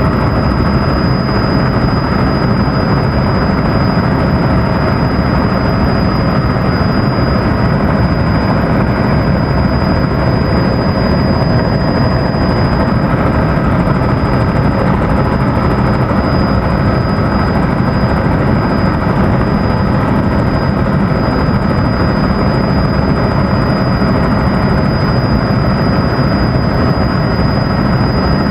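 Helicopter turbine and rotor noise heard from inside the cabin during flight, loud and steady, with a thin high whine running over it.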